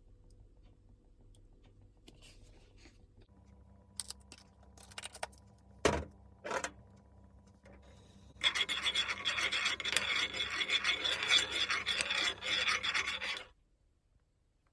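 Two sharp knocks, then about five seconds of steady rough scraping against a surface that stops abruptly.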